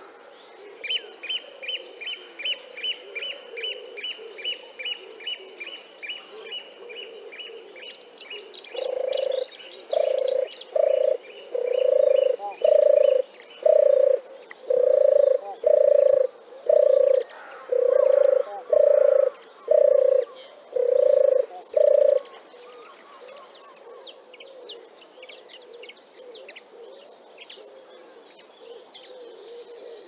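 Turtle dove giving a series of low purring coos, about one a second, for some thirteen seconds. Over the first half a smaller bird repeats a high chirp about three times a second, and other birds call faintly after the coos stop.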